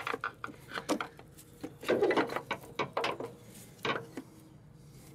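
Irregular clicks, knocks and a scraping rub of metal engine parts being handled and pushed into place by a gloved hand, with a louder scrape about two seconds in.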